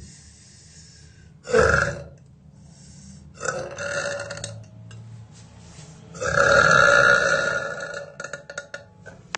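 A woman burping loudly three times. The first burp is short and the second is longer. The third, the loudest, is drawn out over about two seconds.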